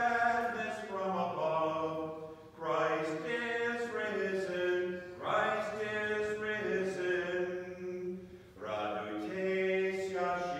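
Byzantine liturgical chant: a voice singing long, held phrases on a few steady pitches. There are short breaks between the phrases, about three seconds apart.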